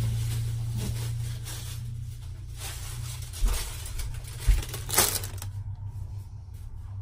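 Plastic bag crinkling as groceries are handled, with several sharp knocks of items set down on the counter, the loudest about five seconds in. A low steady hum fades out about halfway through.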